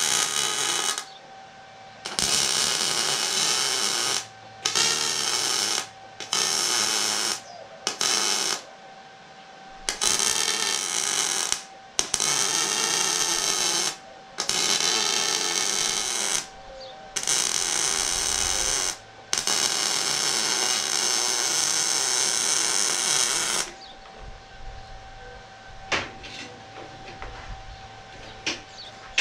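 Welding steel suspension A-arms: about ten bursts of welding arc, each cut in and out sharply, most a second or two long and the last nearly four seconds. A few light clicks and taps follow near the end, over a faint steady hum.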